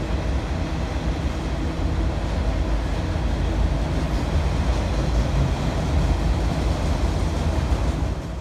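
Freight train of autorack cars rolling past, with a steady rumble of wheels on the rails.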